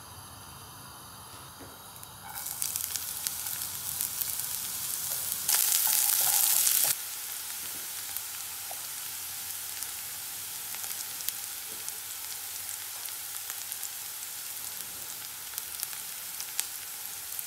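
Chopped onion sizzling in hot olive oil in a nonstick frying pan, a steady hiss with scattered small pops. The sizzling starts about two seconds in, and there is a much louder, harsher stretch of about a second and a half a little before the middle.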